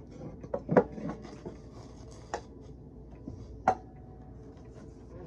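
Irregular clicks, knocks and rubbing of close handling noise, a few sharp taps spaced unevenly, the loudest about a second in and near four seconds.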